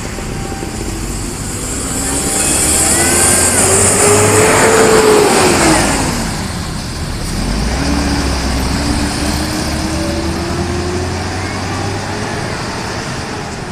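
A large road vehicle passes close by. Its engine note climbs as it approaches and drops as it goes past about five seconds in, with a loud hiss of tyres and air at the peak. Then another engine pulls away with a slowly rising note.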